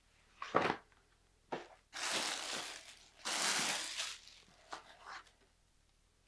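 Paper rustling and crinkling as documents and a letter are handled: a couple of short crackles, then two longer rustles of about a second each, then a few light ticks.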